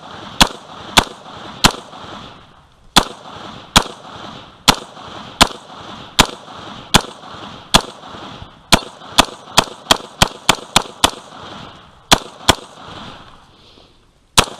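AR-15 rifle firing semi-automatic, about twenty sharp shots, each followed by a short echo. The shots come at roughly one a second, then a quicker string of about three a second some nine seconds in, then two more after a short pause and a last one near the end.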